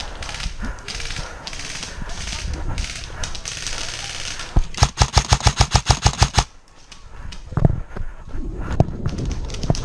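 Footsteps and movement through grass, then, a little past the middle, an airsoft electric rifle fires one full-auto burst of about twenty shots at roughly ten a second, lasting about two seconds.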